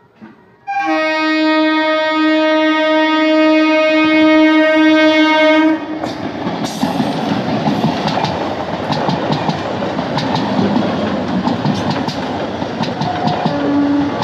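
Electric multiple-unit local train blowing one long, loud, steady horn blast of about five seconds, then running past close with a rhythmic clickety-clack of wheels over the rail joints under the rolling noise. The horn sounds again near the end.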